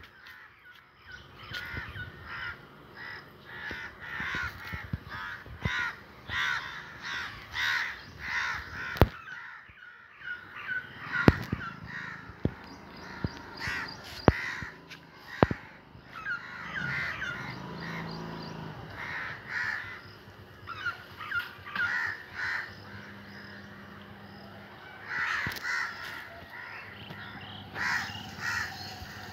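A flock of crows cawing, many harsh calls following one another and overlapping, with a thinner stretch a little past halfway. A few sharp clicks stand out among the calls.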